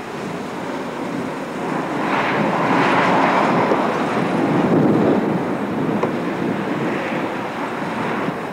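Thunderstorm noise: a steady rush of wind and rain that swells a couple of seconds in and eases again near the end.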